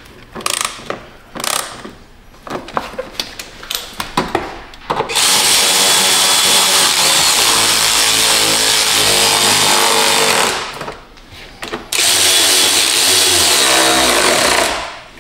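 Cordless electric ratchet driving fasteners. Short bursts and clicks for the first few seconds, then two long steady runs of the motor, the second after a brief pause.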